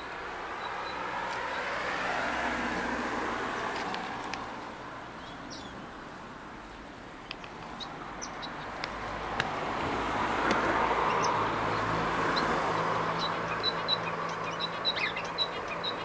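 Aviary finches giving short, high chirps, more frequent near the end, over a background rushing noise that swells and fades twice.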